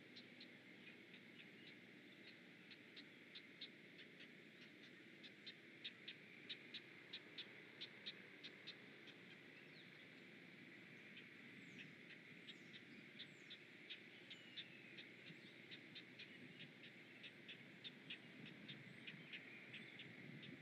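Great blue heron nestlings begging: a faint, fast series of short ticking calls, about two or three a second, coming and going in bouts while the adult is at the nest. A few thin downward-sliding whistles from another bird come about halfway through, over a steady low hiss.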